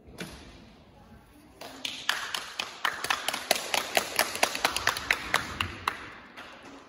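A few people clapping: a quick, uneven run of sharp handclaps starts about one and a half seconds in, about four or five a second, and thins out and stops near the end.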